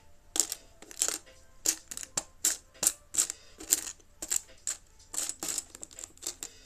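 Small plastic Lego pieces clattering and clicking as they are handled and sorted, a quick irregular run of sharp clicks.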